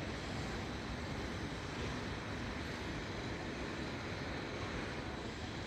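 Steady outdoor background noise, an even low rumble with hiss above it, with no single sound standing out.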